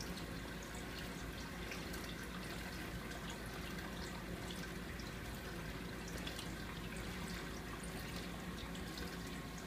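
Reef aquarium water trickling and splashing steadily, with scattered small drips, over a low steady hum.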